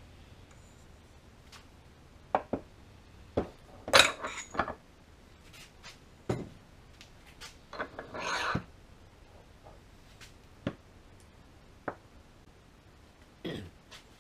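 Metal parts and tools being handled on a workbench: scattered clinks and knocks, a dozen or so at uneven intervals, the loudest about four seconds in, with a short scraping rustle about eight seconds in.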